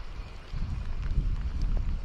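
Wind buffeting the microphone: a low, rumbling noise that gets louder about half a second in.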